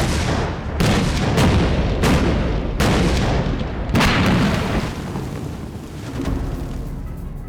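A series of five heavy booms about a second apart, each dying away, then fading down in the last couple of seconds: the dramatic score's deep percussion hits.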